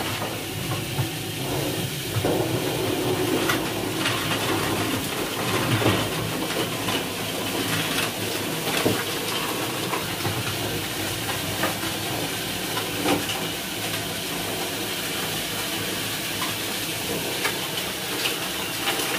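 Ryobi cordless floor sweeper pushed over a bare floor strewn with broken tile debris, its brushes running with a steady whirr and a dense rattle of grit and tile fragments being swept up.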